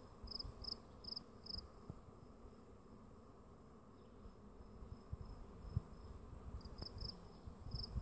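Faint outdoor insect sounds: a short high chirp repeating about two or three times a second, dropping out for several seconds in the middle, over a low steady hum.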